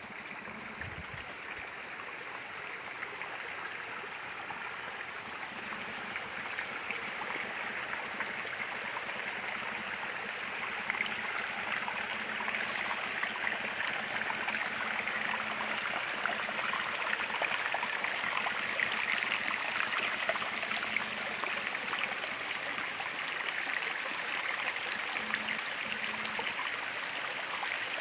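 Water of a stream running steadily over rocks, a continuous rushing with trickling detail, growing gradually louder over the first ten seconds or so.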